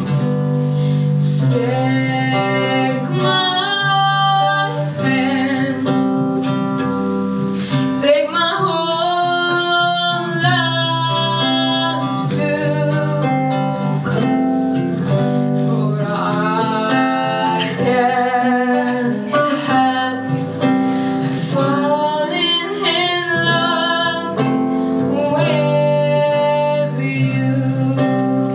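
A woman singing a song into a microphone with vibrato, over steady instrumental accompaniment.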